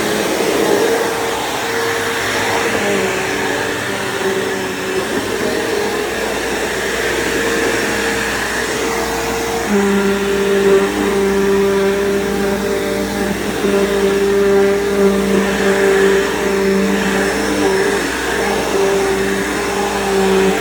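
Bissell PowerForce bagged upright vacuum cleaner running steadily, its motor hum changing tone about halfway through.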